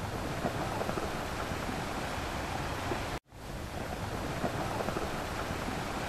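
Steady rushing water noise, cutting out for a moment about three seconds in.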